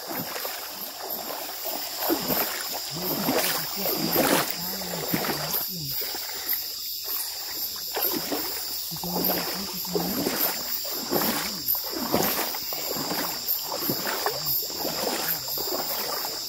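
Water splashing and sloshing in a shallow river, a stroke every half second to a second, like someone wading, over a steady high-pitched insect chorus.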